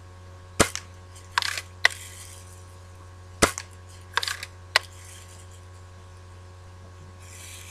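A Daisy Red Ryder spring-piston BB gun firing twice, about three seconds apart; after each shot a short rasp and a sharp click follow as the lever is worked to cock it for the next shot.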